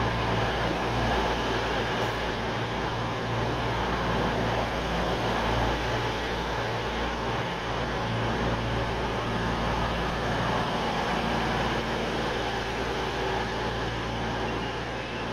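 A diesel train's engine running steadily with a low, even hum.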